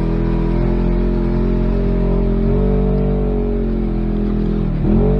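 Side-by-side UTV engine running steadily under way on a dirt trail, heard from inside the cab. The pitch lifts a little partway through, then dips and climbs sharply near the end as the throttle changes.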